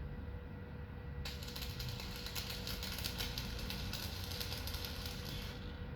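Electric arc welding: a steady dense crackle of the arc that starts abruptly about a second in and cuts off near the end.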